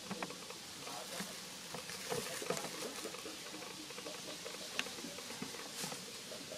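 Dry leaf litter crackling and rustling under a long-tailed macaque as it turns and walks off, a run of scattered light clicks and crunches over a steady background hiss.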